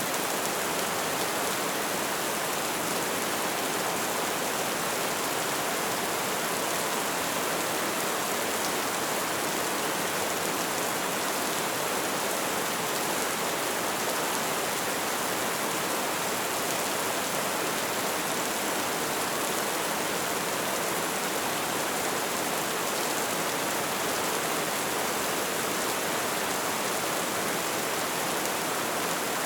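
Light rain falling steadily, an even hiss of drops with no single drop standing out.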